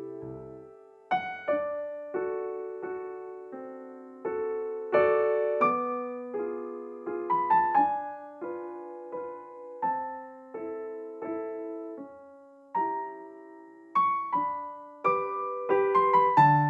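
Background piano music: a gentle melody of struck notes that each ring and fade, over soft lower chords.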